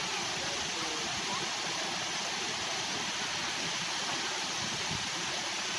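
Steady rush of a waterfall, tiered falling water roaring evenly.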